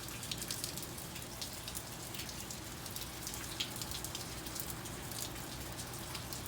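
Steady rain falling, a continuous hiss with many separate drop hits ticking through it.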